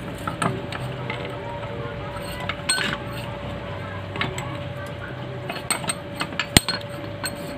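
Metal clinks and clicks from a bench vise being worked to press a cam adapter onto a motorcycle camshaft: the steel vise handle and the steel parts knock lightly against the jaws. There is one sharp click a little before the end, over a steady low hum.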